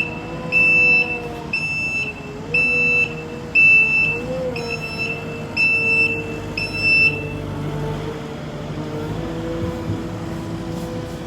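A high electronic beeper sounding about once a second, each beep about half a second long, about eight times before stopping some seven seconds in, over a vehicle engine running steadily.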